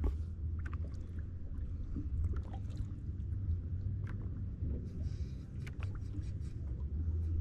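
Low, uneven rumble of wind and a small boat on choppy open water, with scattered small knocks and splashes of water against the hull.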